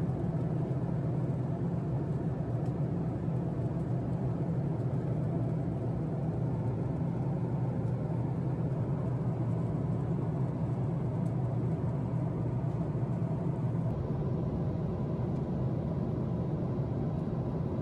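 Steady cabin drone of a Boeing 767-400 in flight: engine and airflow noise heard from a passenger seat, a deep, even rumble with faint steady hums above it.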